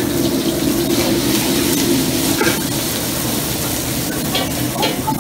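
Commercial wok range running: a steady, loud rushing of its gas burners and running water. A ladle clinks lightly against the wok a couple of times near the end.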